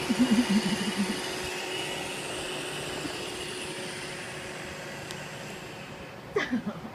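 iRobot Roomba 650 robot vacuum running steadily, its motor and brushes sweeping up sand from a hard floor, with a constant hum that slowly fades. A short wavering pitched sound comes in the first second, and a brief falling one near the end.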